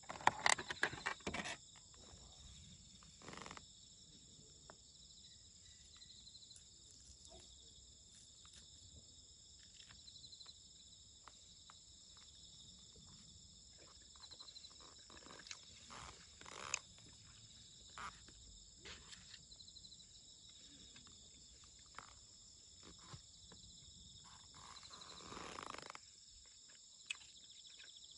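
Steady chorus of insects, crickets by the sound of it, chirping in a few high tones. In the first second or two a thin plastic bento wrap and lid crackle loudly as they are opened, and small clicks and rustles of the plastic tray and chopsticks follow now and then.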